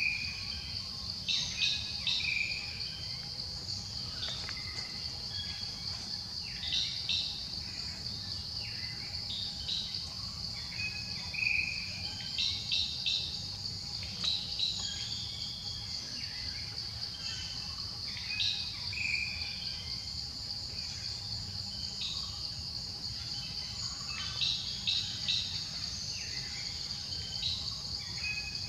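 Steady, high-pitched drone of insects, with birds chirping briefly now and then over it.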